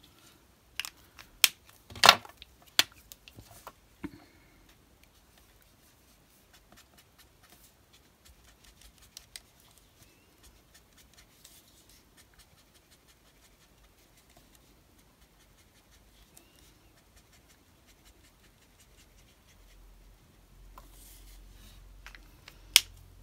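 Alcohol marker tip scratching lightly over a small piece of die-cut card, with a few sharp clicks and taps in the first few seconds. A low rustle and rumble come in near the end, with one more click.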